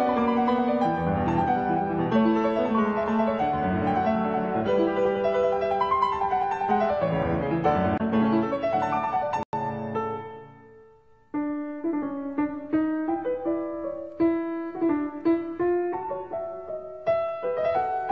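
Background piano music. A full piano passage breaks off briefly about nine and a half seconds in and fades away, and a lighter tune of separate piano notes starts about two seconds later.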